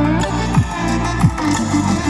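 Electronic music played at maximum volume through a Sony ULT Field 1 portable Bluetooth speaker with its ULT bass boost on. A deep bass note drops sharply in pitch twice over steady bass and synth notes.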